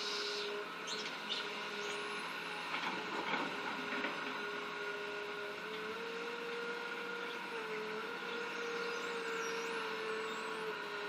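Excavator engine running steadily while digging. Its pitch rises from about six seconds in and drops back near the end. A low-powered machine, it sounds a bit rough and strained under the work. A few knocks come around three seconds in.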